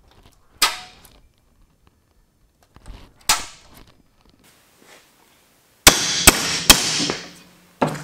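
Two single sharp knocks, then hammer blows on a thick scrap steel bar clamped in a bench vise: three hard strikes in quick succession about two seconds before the end, each leaving the bar ringing, and one more at the very end. The bar, about 3/16 inch thick, is too thick to bend to the contour by hammering.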